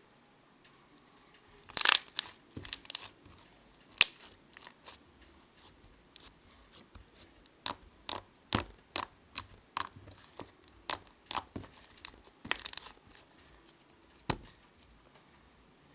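Irregular sharp clicks and crackles from toys being handled by hand: a cluster about two seconds in, one sharp snap at four seconds, then a quicker run of clicks through the middle and a last click near the end.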